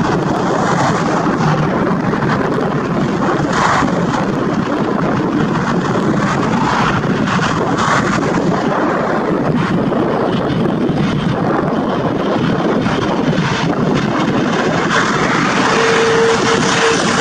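Convair CV-580 freighter's two Allison 501 turboprop engines on final approach, a steady loud drone that grows slightly louder as the plane comes near. A steady whine joins the drone near the end.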